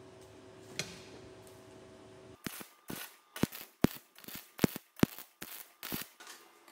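A steady hum, then a little over two seconds in a MIG welder's arc strikes on the steel-tube frame and crackles in a run of sharp, irregular pops, two or three a second, for about four seconds as it lays tack welds.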